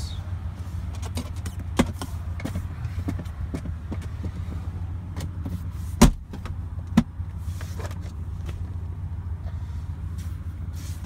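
Center console lid and storage tray of a pickup's cab being opened and handled: light clicks, a sharp clunk about six seconds in and a smaller one a second later. A steady low hum sits under it.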